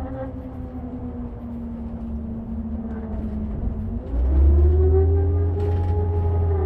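Volvo engine and radiator cooling fan running with a steady whine that sags slightly in pitch. About four seconds in, the whine rises to a higher held note and a heavy low rumble comes in, as the engine takes up load.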